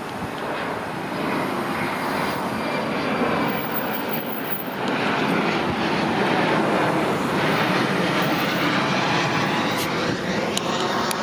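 Airliner flying low overhead: a steady jet rumble that builds to its loudest around the middle and eases off slightly near the end.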